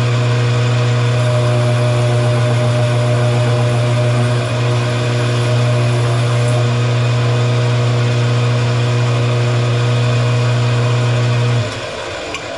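Metal lathe running while turning a steel workpiece: a loud, steady motor hum with a mechanical whine above it. About a second before the end the hum stops suddenly, leaving a quieter rumble.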